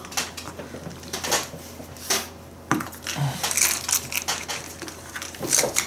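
Small wooden game pieces clicking and clattering as hands pick them out of plastic cups and set them down on a cardboard game board. The clicks are irregular, with a busier cluster near the end.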